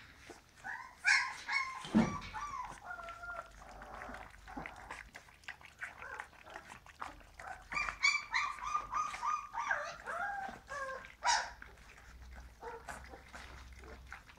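Young puppies feeding together from a shallow stainless steel bowl, whining and squealing in two bouts, about a second in and again around eight seconds in, over a constant patter of small clicks from lapping and chewing.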